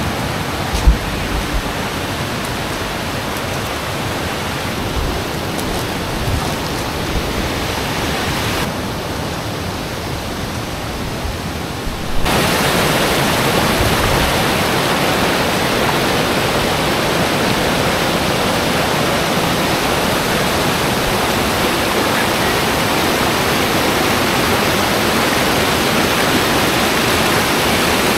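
Steady rush of Daluolan Creek's flowing water, which suddenly grows louder about twelve seconds in. A brief knock about a second in.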